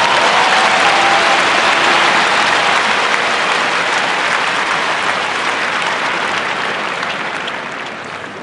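A large arena crowd applauding, loud and dense, dying away near the end.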